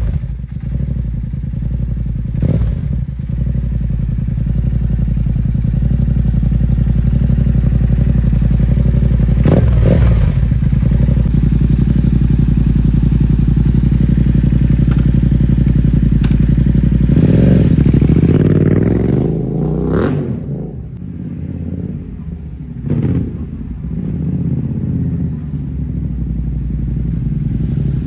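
2022 Yamaha MT-07's parallel-twin engine idling through an Akrapovic carbon slip-on exhaust while warming up, with a couple of short throttle blips. Past the middle the note changes as the bike pulls away, and it then sounds quieter with a few more short blips as it rides off.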